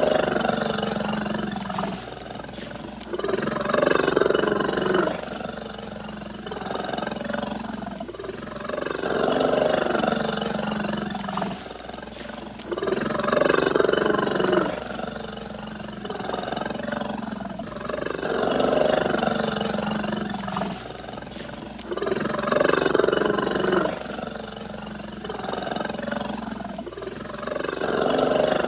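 Bear growling: a continuous series of deep, rough growls, each swelling and fading, about one every three seconds.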